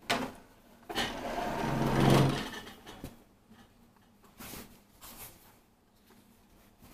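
Cloth rustling and crumpling as a fabric cushion cover is handled and turned, with a louder stretch of about a second and a half near the start and softer scattered rustles after.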